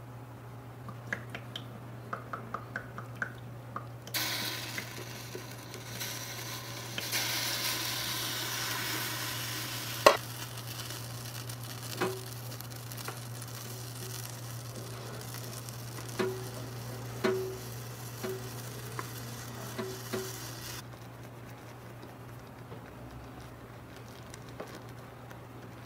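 A miniature frying pan of cream sauce and noodles sizzling on a tiny stove while a small wooden spatula stirs it and knocks against the pan. The sizzle starts suddenly a few seconds in and stops a few seconds before the end; the sharpest knock comes about ten seconds in, with light ticks of the spatula at the start.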